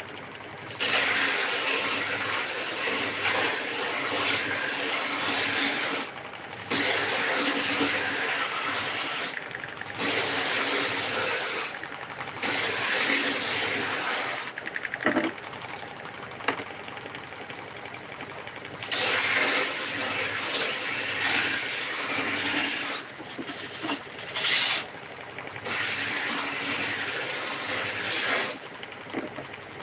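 Long-belt stroke sander running steadily, with a loud rasping hiss each time the hand pad presses the belt onto a board to sand off old lacquer, about eight passes of a few seconds each; between passes only the motor and belt are heard.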